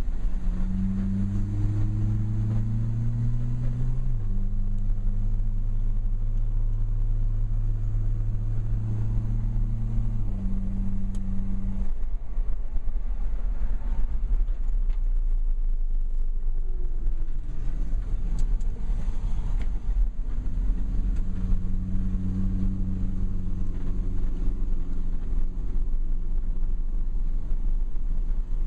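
Dodge car's engine drone heard from inside the cabin while driving, over a steady low road rumble. The drone climbs slightly and drops a step about four seconds in. It fades away about twelve seconds in and comes back about eight seconds later.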